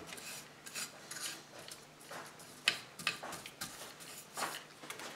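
Small hand tool scraping and tapping on the metal body of an antique wind-up toy car, faint irregular short scrapes and clicks as paint stripper is worked into the old paint.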